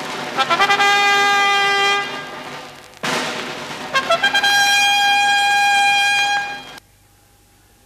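Bugle call played twice, each time a quick run of short notes leading into a long held note; the second call cuts off sharply near the end. It is the racetrack's call as the horses enter the track.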